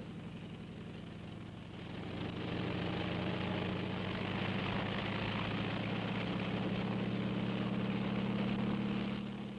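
Small bubble-canopy helicopter lifting off, its engine and rotor running with a steady drone that grows louder about two seconds in and then holds.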